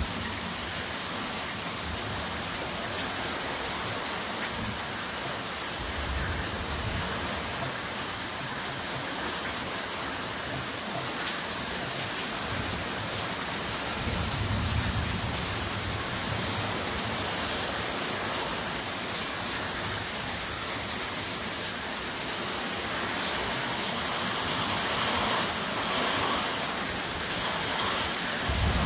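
Heavy rain falling steadily, an even hiss, with a low rumble swelling up a few times.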